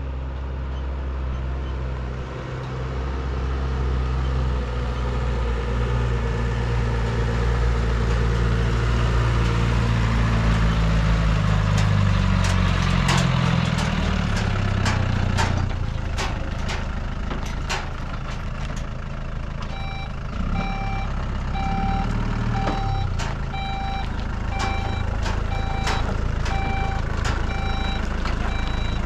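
Pickup truck engine running and revving up as the truck manoeuvres, with a scatter of sharp clicks partway through. From about two-thirds of the way in, a reversing alarm beeps a little over once a second as the truck backs up.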